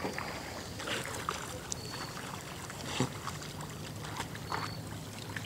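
Water lapping and light splashing, with scattered small ticks and a few short, faint high chirps.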